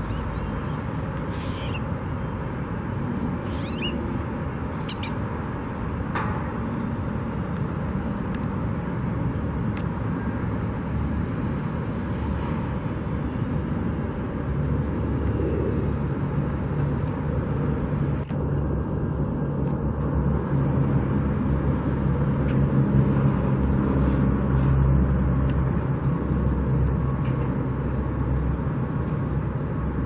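Steady outdoor rumble of traffic and machinery, with a vehicle engine humming louder from about halfway through. A few short, high chirps come in the first few seconds.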